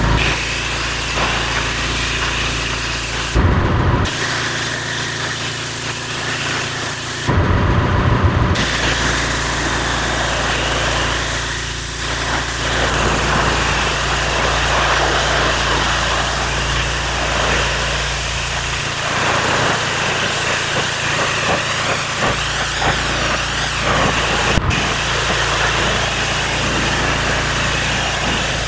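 Pressure washer spraying paving slabs and a low stone wall: a steady loud hiss from the high-pressure water jet over the hum of the machine running. The spray breaks off briefly twice in the first few seconds.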